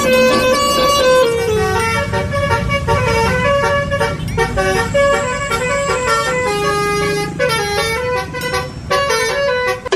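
Telolet basuri bus horn playing a quick melody of stepped notes, over a low rumble.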